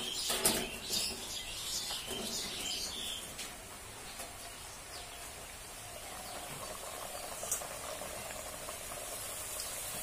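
Luchi (puri) frying in hot oil in a karahi: a steady sizzle and hiss of bubbling oil. Birds chirp faintly in the first few seconds.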